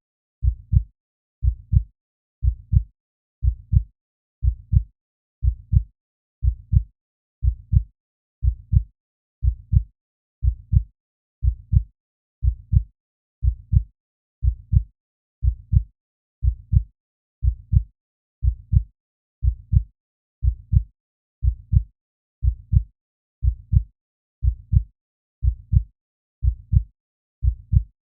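Heartbeat sound effect: a steady, low double thump (lub-dub) repeating at about one beat a second.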